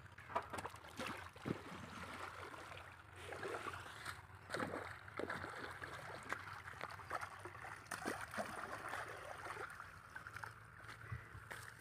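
Irrigation water gurgling and trickling through an opening in a field channel's mud bank. Irregular splashes and squelches come from feet working in the wet mud.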